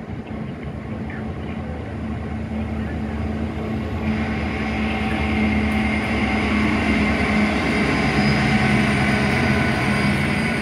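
Class 66 diesel-electric locomotive's two-stroke EMD V12 engine running under load as it hauls aggregate hopper wagons past. A steady low drone grows louder as the locomotive draws level and peaks near the end.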